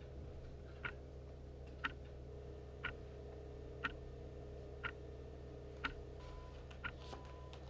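A clock ticking steadily about once a second over a low, steady hum, with a few faint short tones near the end.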